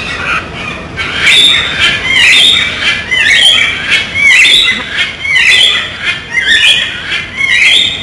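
Blue-and-gold macaw squawking loudly and repeatedly, about once a second, starting about a second in.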